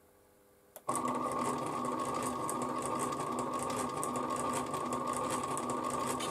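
Stepper motor driving 3D-printed plastic reduction gears, starting with a click about a second in and then running steadily with a whine and gear noise as it turns a turntable at 78 rpm. The mechanism is really quite loud.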